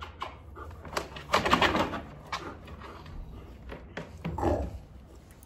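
Samoyed dog vocalising: a noisy huffing grumble about a second and a half in, then a drawn-out yawn with a short falling whine a little after four seconds in.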